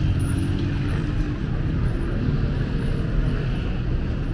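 City street traffic: cars and motorbikes running and passing, a steady low rumble without breaks.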